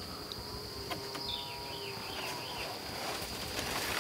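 Steady high-pitched insect drone in the woods, with a songbird's repeated short chirps over it and a faint low hum through the middle.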